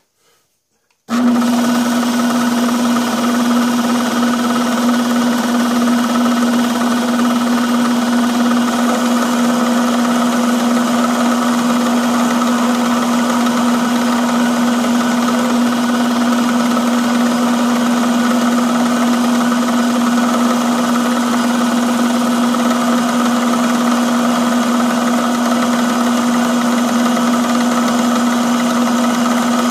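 Electric motor of a small metalworking machine tool switched on about a second in, then running steadily with a strong even hum.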